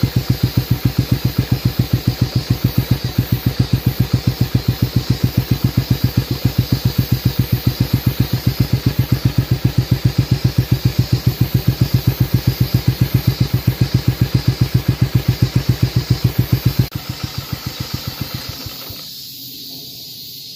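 Kawasaki Meguro 250 SG's single-cylinder four-stroke engine idling, its exhaust beating out an even, steady pulse from the chrome muffler. The engine runs on newly added STP oil, which the rider feels has made it a little quieter. About three seconds before the end the beats drop suddenly and die out as the engine is shut off.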